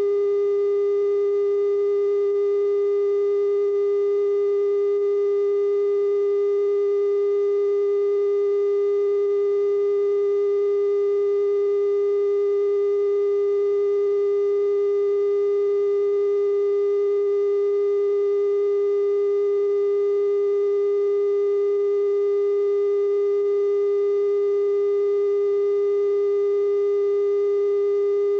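Steady 420 Hz television test tone with faint overtones, the audio of a TV station's bars-and-tone signal after sign-off.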